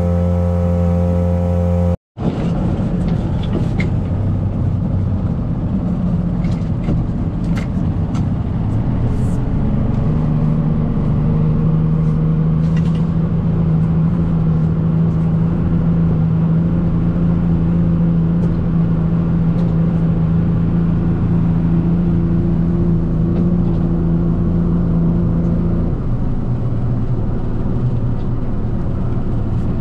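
Motorboat engine running steadily underway, with water and wind noise; its drone shifts pitch slightly about ten seconds in and again near the end. A brief dropout at an edit about two seconds in, and scattered light clicks and knocks of crab-pot gear in the first half.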